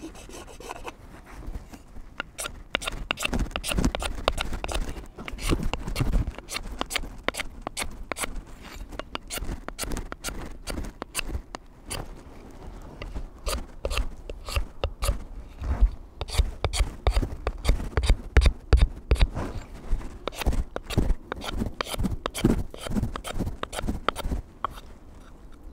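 A blade scraping the factory lacquer off a wooden hatchet handle in quick, repeated short strokes, several a second, coming in spells with brief pauses.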